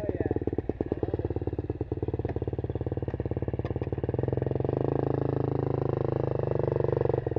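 Dirt bike engines running, close to the microphone, with a fast even beat of firing pulses. About four and a half seconds in, the nearest bike is put under load and its engine note rises and shifts as it rides off.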